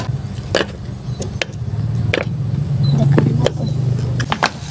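Mud clam shells dropped one at a time into a hot metal wok, clacking against the pan and each other in several sharp knocks about a second apart, over a steady low hum.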